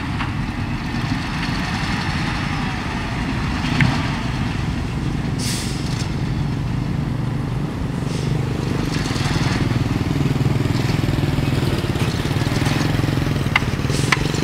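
Dump truck's diesel engine running steadily while its raised bed tips out a load of dirt, with a short loud hiss about five and a half seconds in and a few more fainter hisses and sharp clicks later.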